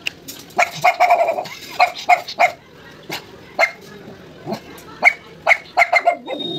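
A dog barking repeatedly: a dozen or so short, sharp barks in quick irregular runs, with a brief pause in the middle.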